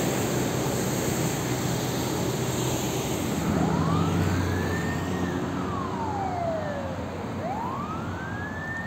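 Steady heavy motorway traffic noise, with an emergency vehicle's siren coming in about a third of the way through and wailing in slow rising-and-falling sweeps, rising twice.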